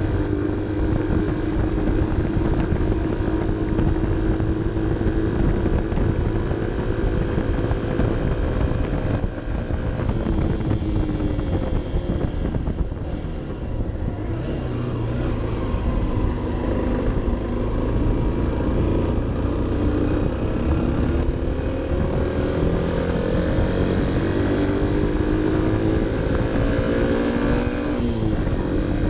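Honda CB 125 F's air-cooled single-cylinder engine running under way, heard from the bike with wind on the microphone. The revs fall away about a third of the way in, then climb steadily over the last several seconds and drop off sharply just before the end.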